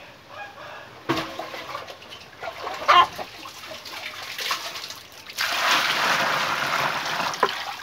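Water poured from a scoop into a bamboo basket of field snails sitting in a metal basin, splashing loudly for about two seconds near the end. Earlier there is quieter trickling and a few knocks, the sharpest about three seconds in.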